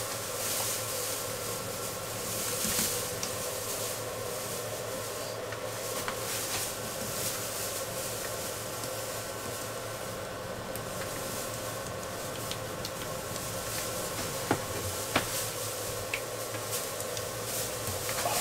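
Soft rubbing of a brush working wet resin over a worktop, over a steady hum, with a couple of light clicks near the end.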